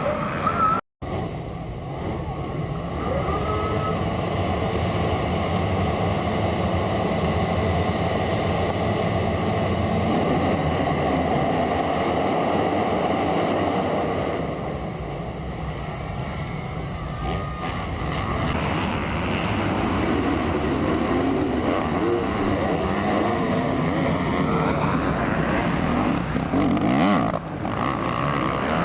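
Motocross dirt bike engines running on the track, several machines revving up and down as they pass. The sound drops out completely for a moment about a second in.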